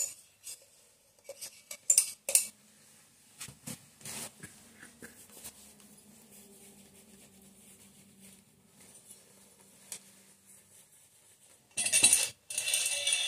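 Metal clinks and taps as the motorcycle cylinder block and its oiling tool are handled over the crankcase: a few sharp clicks in the first few seconds, then a faint steady hum. A louder scraping, rustling noise comes near the end.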